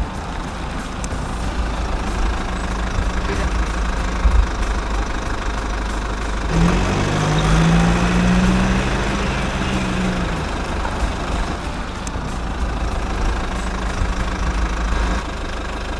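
Mitsubishi Colt L300 van's engine idling with a steady low rumble, revving up briefly about halfway through and then settling back.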